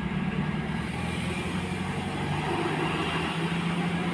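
Heavy coal dump truck's diesel engine running steadily as it takes the hairpin bend, mixed with other passing traffic; the engine note edges up slightly partway through.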